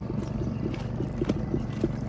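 Pond aerator's electric motor running with a steady low hum, with irregular short knocks on top.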